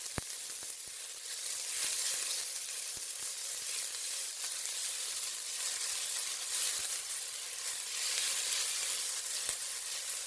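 Chopped onion sizzling steadily in olive oil in a cast iron stock pot, with a few light clicks as it is stirred.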